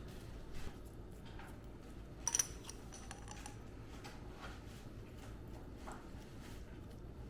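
Light kitchen handling noise: scattered small taps and clicks, with one sharper clink that rings briefly a little over two seconds in.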